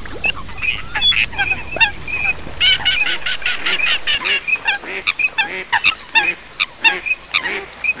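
A mixed flock of common coots and ducks (teal and pintail) calling: many short, overlapping honking calls, several a second, without a break.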